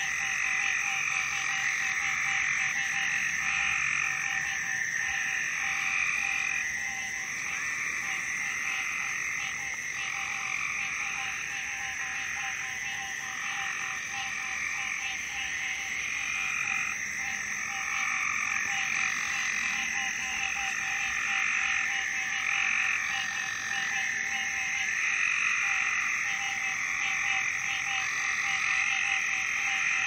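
A continuous chorus of many frogs calling at once. Overlapping calls repeat every second or so over a steady, unbroken trill.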